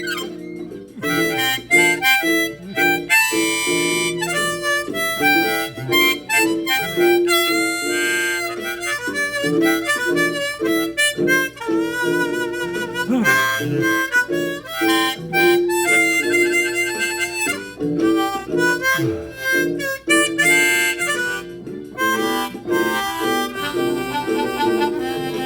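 Harmonica playing an instrumental break of a gospel song, with wavering, warbling notes over a steady backing of lower notes.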